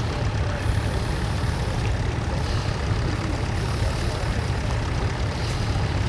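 Vintage tractor engine running steadily under load as it pulls a plough through stubble.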